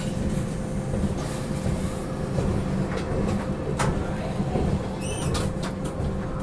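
Passenger train running along the track: a steady low rumble with a steady hum, broken by a few sharp clicks about three and four seconds in and a cluster of them around five seconds.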